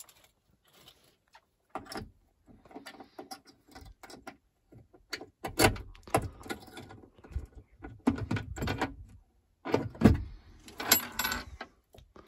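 Metal clicks and knocks of a key being worked in a newly fitted lock on a fire alarm panel door, with two louder knocks about halfway through and near the end, and keys jingling on their ring shortly before the end.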